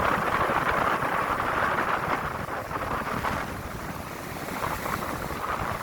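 Sea surf washing on the shore, louder at first and easing off about halfway through, with wind rumbling on the microphone.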